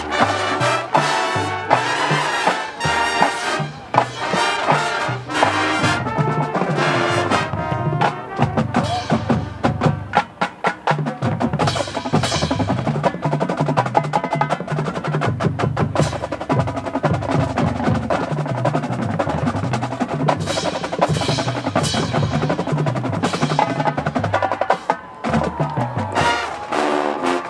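Marching band playing a percussion-led passage: the drumline's snares and drums lead with rapid strokes and rolls, with pitched low notes moving underneath.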